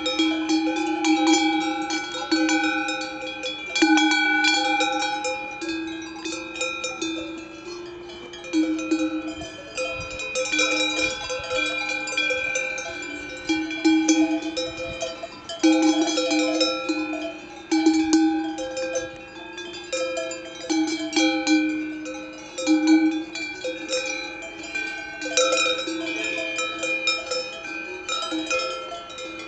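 Cowbells on a grazing cattle herd clanking irregularly, many bells at different pitches overlapping into a continuous jangle.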